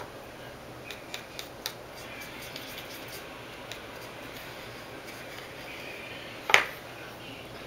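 Quiet, steady room hiss with a few faint clicks a second or so in and one sharp click about six and a half seconds in.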